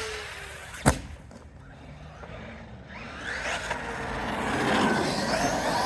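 Large electric RC truck hitting the ground with a sharp bang about a second in, then its electric motor whining up and down in pitch as the throttle is worked.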